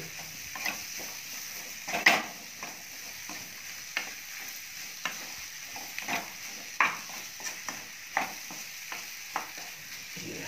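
A spatula stirring and tossing spiced eggplant pieces in a nonstick kadai: irregular scrapes and knocks of the spatula against the pan over a steady sizzle of frying, the sharpest knock about two seconds in.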